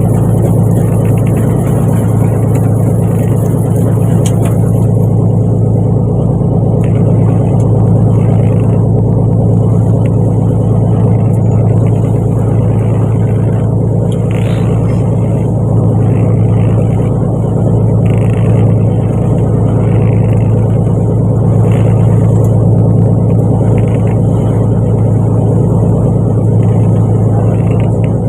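Fishing boat's engine running steadily at a constant speed: a loud, unbroken low hum.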